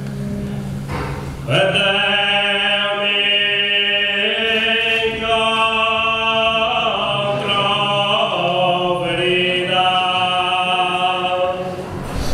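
Sardinian cuntzertu, four male voices (bassu, contra, mesu oghe and boghe), singing traditional polyphony a cappella: low held notes at first, then the full close chord comes in about a second and a half in and shifts several times in long sustained notes, with a brief break near the end.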